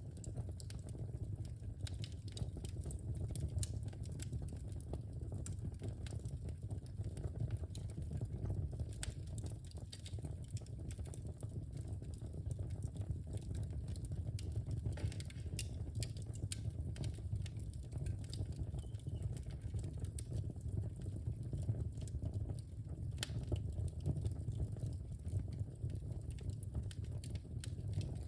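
Wood fire burning in a fireplace: a steady low rumble of flames with frequent, irregular small crackles and pops from the burning logs.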